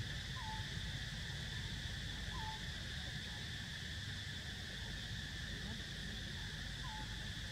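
Outdoor ambience: a steady, high-pitched insect drone, with a short animal call repeating three times about two seconds apart, over a low rumble.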